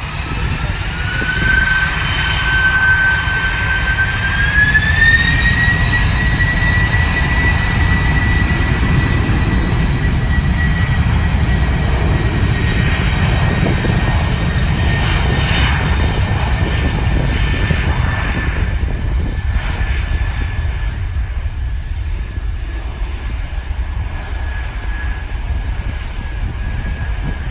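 Four jet engines of a Boeing 747-400 freighter spooling up, their high whine rising in two steps over the first few seconds. The whine then holds steady over a loud low rumble, which eases slightly near the end.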